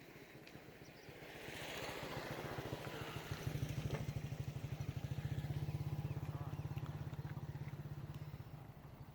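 Small engine running with a rapid low putter, like a motorcycle: it grows louder over a couple of seconds, holds steady, then fades near the end.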